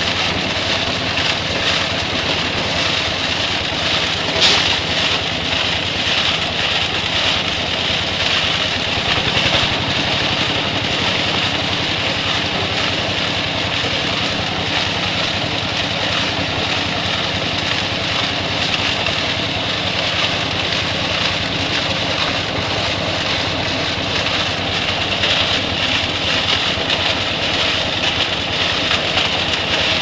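Drum concrete mixer running steadily, its drum turning with a load of concrete, with one sharp knock about four and a half seconds in.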